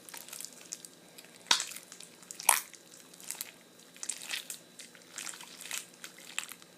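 Runny, sticky homemade slime being squished and pulled in the hands, making wet clicking squelches with two louder pops about a second apart near the start.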